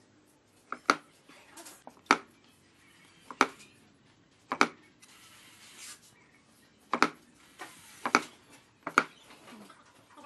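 Handmade wooden cigarette dispenser being worked by hand: seven sharp wood-on-wood clacks, about a second apart with a longer pause in the middle, as its tilting inner tray and loose parts are knocked into place, with brief scraping rubs of wood sliding on wood between them.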